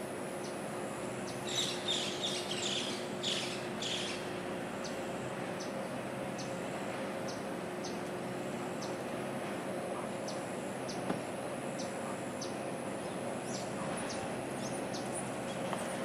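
Birds chirping in a short cluster about two seconds in, over a steady low hum from a passing container ship's machinery. A faint, regular high ticking, roughly twice a second, runs through the middle.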